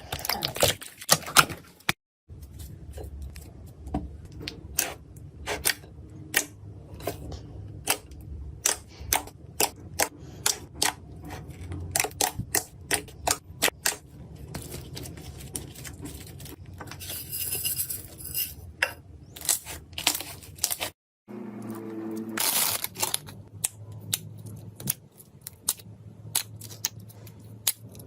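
Slime being pressed and worked by hand, giving a dense run of sharp clicks and crackly pops. The sound breaks off twice for a moment as the clips change.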